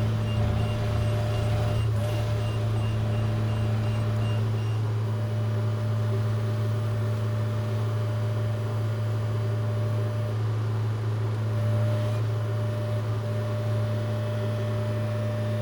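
Yanmar diesel engine of a John Deere 60G excavator running steadily with a constant low hum.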